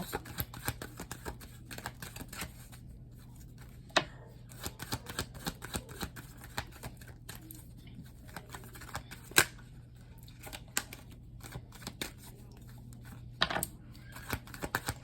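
Tarot cards being shuffled and handled: irregular light clicks and card snaps, a few sharper ones, over a low steady hum.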